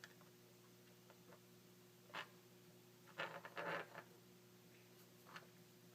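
Near silence with a few faint rustles and clicks of small cable wires being handled and twisted together by hand, over a low steady hum.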